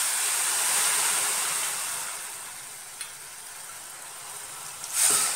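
Water sizzling in a hot metal pan on a gas stove around lumps of jaggery: a hiss that fades over the first three seconds and settles to a faint steady hiss, with a short louder rush of hiss near the end.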